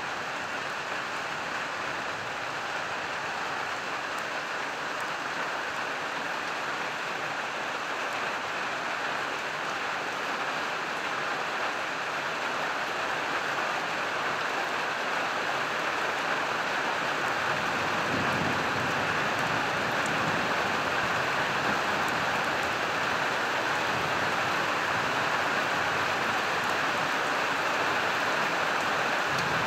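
Steady rain, growing gradually louder, with a low rumble of distant thunder about two-thirds of the way through and again right at the end.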